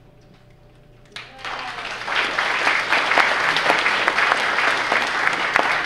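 Audience applauding. The clapping starts suddenly about a second in and quickly builds to full, steady applause.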